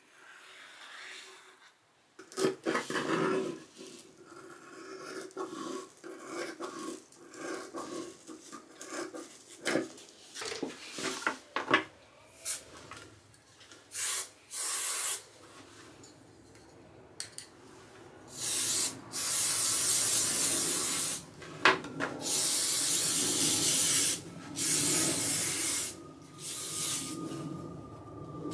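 A knife scrapes and rustles as it cuts through a sheet of foam, with a few sharp clicks. Over the second half, an aerosol can of spray adhesive hisses in about six bursts of one to two seconds each.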